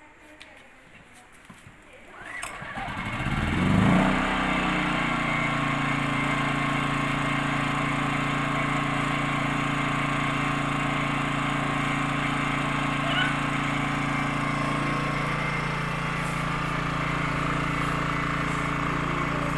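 Small 2 kVA inverter generator's engine starting about two seconds in, rising in pitch as it revs up, then running steadily; its note shifts slightly near the end.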